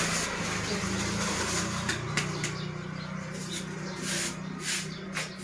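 A stiff bristle brush scraped in short strokes, making a run of scratchy swishes that starts about two seconds in, over a steady low hum.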